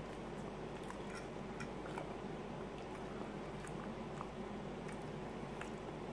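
Quiet eating sounds: chewing, and a metal fork cutting a bite of omelette with a few light clicks against the plate, over a low steady hum.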